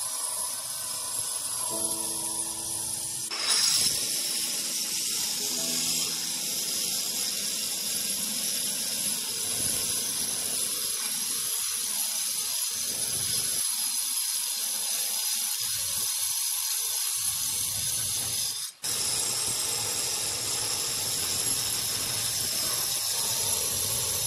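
Handheld electric stone-cutting saw with a water feed cutting a granite slab: a steady high hissing grind. The sound breaks off for an instant about 19 seconds in.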